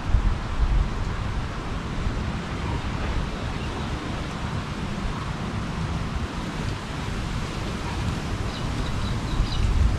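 Gusty storm wind rushing through trees and buffeting the microphone with a heavy low rumble, gusting harder near the end.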